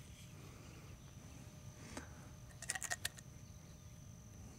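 Light metal clicks and clinks of small metal pellet tins being picked up and handled, one click about two seconds in and a quick run of them just after, over a faint steady high tone.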